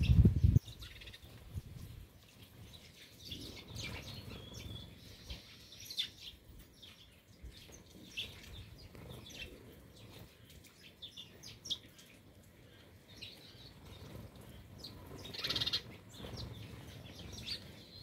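A flock of house sparrows chirping as they feed, with short scattered chirps and a denser bout of chirping near the end. A brief loud flutter of wings comes at the very start.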